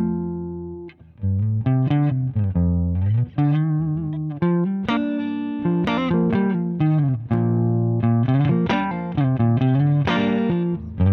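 Electric guitar played through a Zander Circuitry Surplus overdrive pedal, with a crunchy driven tone. It opens on a ringing chord, then after a brief gap plays a lead phrase of picked notes with several string bends and vibrato.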